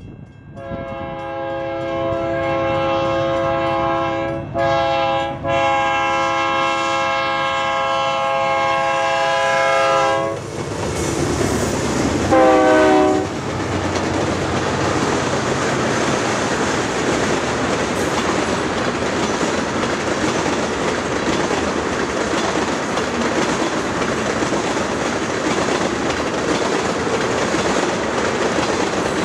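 Freight locomotive's air horn blowing long and short blasts for a grade crossing, then a last brief blast that drops in pitch as the locomotive goes by. After that, the steady rumble and clatter of loaded tank cars and hoppers rolling past on the rails.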